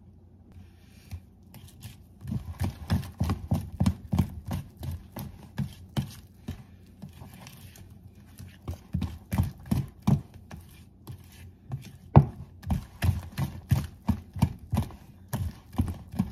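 Wire whisk beating thick banana muffin batter by hand in a bowl: a quick, uneven run of knocks and clacks as the whisk hits the bowl. The knocks slow for a moment near the middle.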